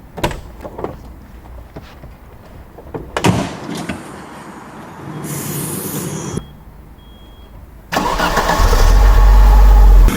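Clicks and knocks, a stretch of hiss and two short high beeps, then about eight seconds in the 1987 Audi 100 Quattro's 2.3-litre inline-five comes in very loud for about two seconds before dropping back to a steady idle near the end.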